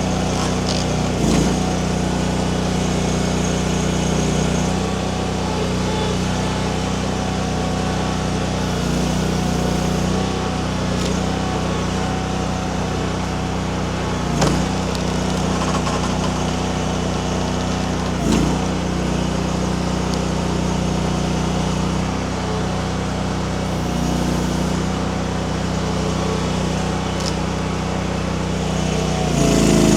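Mini skid steer's engine running steadily while it works a hydraulic wood-splitter attachment, with a few sharp knocks, about a second in and twice more in the middle.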